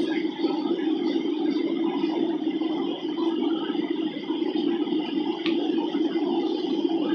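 Steady hum of an airliner cabin in flight, the engine and airflow noise heavy in the low-middle range, with a small click about five and a half seconds in.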